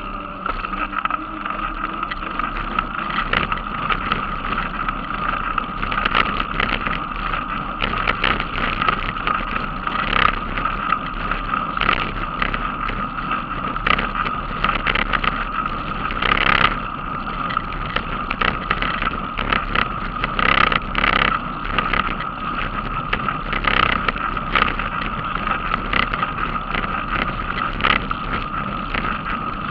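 Riding noise from a mountain bike on an asphalt path: a steady rolling hum with frequent short knocks and rattles.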